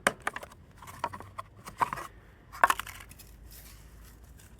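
Scattered light clicks, clinks and knocks of small hard objects being handled and set down, the sound of rummaging for a spray can.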